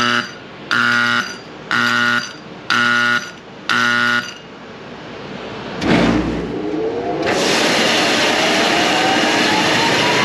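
Grain dryer starting up: a start-up warning horn beeps five times, about once a second. A low thump follows, then the dryer's fan comes on with a loud steady rush and a whine that rises slowly in pitch as it spins up.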